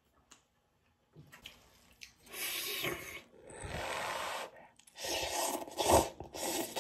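Wet slurping and squishing of instant noodles being eaten close to the microphone, heard as three drawn-out wet sounds of about a second each, starting about a second in.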